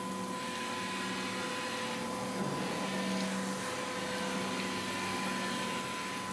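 Internal grinding machine running: a steady hum with high, even tones from the turning workpiece spindle, over a constant hiss of coolant pouring onto the part.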